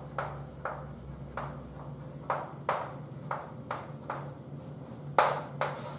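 Chalk tapping and scraping on a blackboard as a word is written, in short sharp strokes about two a second, with one louder tap about five seconds in. A steady low hum runs underneath.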